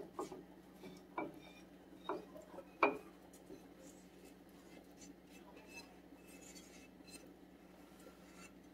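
A spoon scraping a thick butter-and-flour mixture out of a metal skillet into a soup pot: a few sharp knocks of the spoon against the pan in the first three seconds, the loudest just before the third second, then faint scraping and soft ticks.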